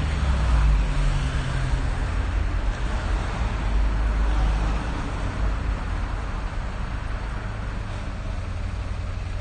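City street traffic: a steady low rumble of passing road vehicles, heaviest in the first few seconds and easing off about halfway through.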